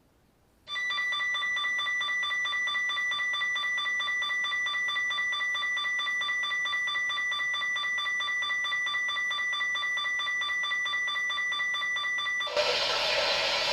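Emergency Alert System alert tone over NOAA Weather Radio: a steady, loud electronic tone with a fast even flutter, starting just under a second in and lasting about twelve seconds. It cuts off near the end, where a louder, hissy, noisy sound takes over.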